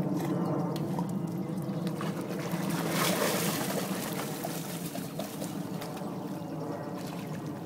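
Water splashing and trickling as a Dalmatian swims, with a louder rush of splashing about three seconds in.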